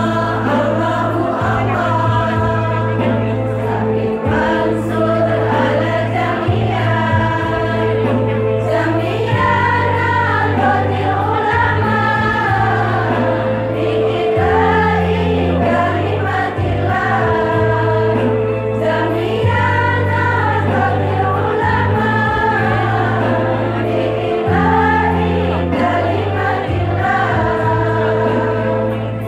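Women's choir singing together over a steady instrumental backing of held low notes, which shift pitch twice along the way.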